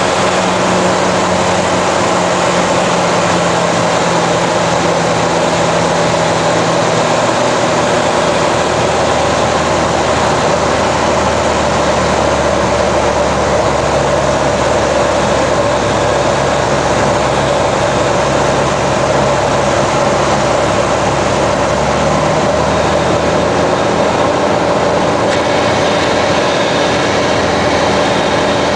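Cirrus SR22's six-cylinder Continental IO-550 engine and spinning propeller droning steadily, heard from inside the cockpit on final approach. The tone of the drone shifts slightly about seven seconds in.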